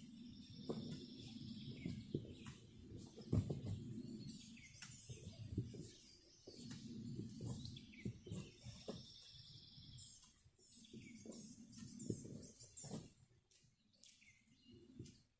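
Songbirds chirping and trilling repeatedly, with irregular low rustling and knocks close by.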